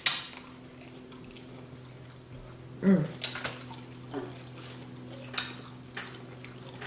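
Close-up mukbang eating sounds from a seafood boil: a sharp wet smack at the start, then scattered lip smacks, sucking and chewing on crab and shrimp, with a brief murmur of a voice about three seconds in. A steady low hum runs underneath.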